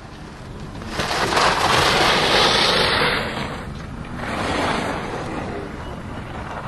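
Skis carving giant-slalom turns on hard-packed snow, the edges scraping and hissing through each turn: a loud swell about a second in that lasts a couple of seconds, and a second, weaker swell around four seconds in.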